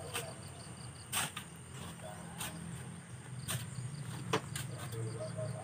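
Steel shovels scraping into a pile of wet sand and pitching it into a wooden truck bed, one sharp scrape roughly every second, the loudest a little after four seconds in.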